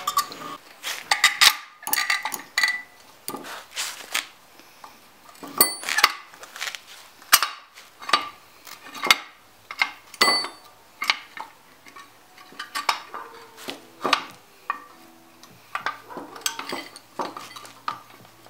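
Metal hand tools and brake caliper parts clinking and knocking against each other, as a caliper is being stripped down. There are many short, irregular clinks with brief pauses between them.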